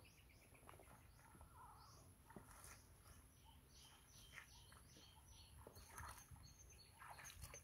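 Faint, scattered chirps of small birds calling over a low background rumble.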